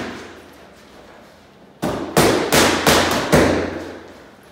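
Boxing gloves smacking into focus mitts in a fast combination: about five sharp punches in quick succession, a little under half a second apart, starting just under two seconds in after a short lull.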